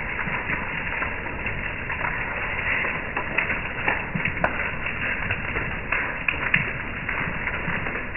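Hail and rain pelting a wooden deck and wrought-iron mesh patio furniture: a steady hiss of rain with scattered sharp ticks of hailstone strikes.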